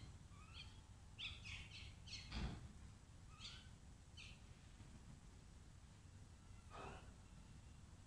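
Faint, scattered calls of a feeding flock of common mynas and house crows. Short squawks and chatter come thickest in the first few seconds, with a single longer call near the end.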